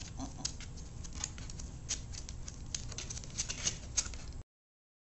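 Irregular small clicks and taps over a low steady hum, cutting off suddenly to silence a little over four seconds in.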